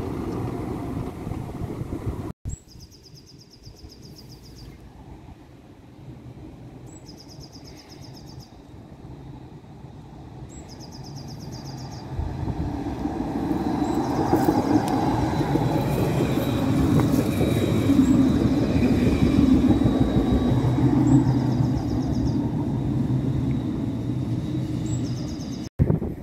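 A tram approaching and running past, a low rumble that swells from about halfway through and stays loud for several seconds. Before it, over quieter street background, a short high chirp repeats every three to four seconds.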